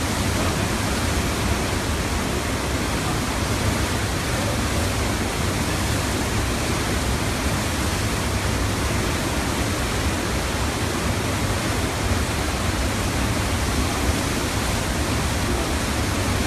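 A river in heavy flood: muddy floodwater surging and churning through the streets in a steady, loud rush.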